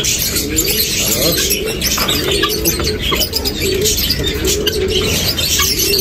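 Domestic pigeons cooing over and over in low, wavering phrases, with small birds chirping faintly at a higher pitch.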